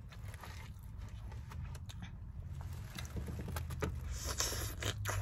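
Handling sounds of eating with a plastic fork: scattered light clicks and scrapes of the fork on the food container, a brief rustle about four seconds in and a few sharper clicks near the end, over a steady low hum in the car's cabin.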